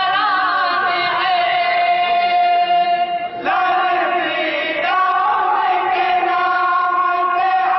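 A group of men singing a naat together in unison, holding long drawn-out notes. The line breaks off about three and a half seconds in, and a new phrase starts there and again about five seconds in.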